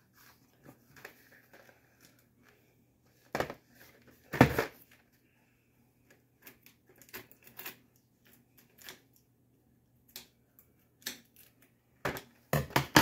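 A cardboard advent calendar box being handled and unwrapped on a countertop: plastic wrap rustling and being cut, with scattered taps, two louder knocks about three and a half and four and a half seconds in, and a few more knocks near the end.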